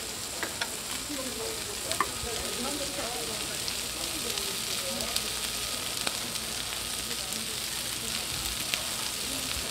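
Abalone and turban-shell skewers sizzling on a hot flat iron griddle, a steady hiss with a few sharp clicks.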